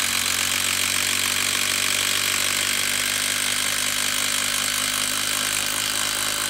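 Makita 18V brushless impact driver hammering steadily under load, driving a two-and-a-half-inch lag screw into a wooden stump at full trigger.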